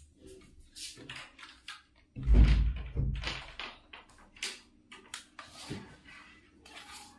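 Hands pressing on a laptop screen's plastic bezel and handling its cables: scattered light clicks and taps, with one heavier thump a little after two seconds in.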